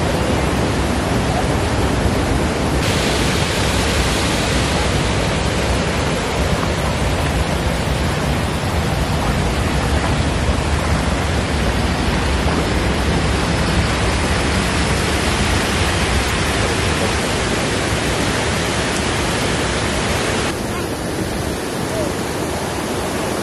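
Rushing river water, a steady loud noise. It turns brighter and hissier about three seconds in and duller again near the end.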